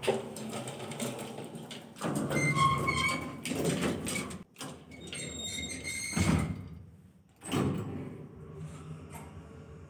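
A folding steel grille gate being slid along its track: its metal slats rattle and scrape with a thin squeal, in three pushes after a knock at the start.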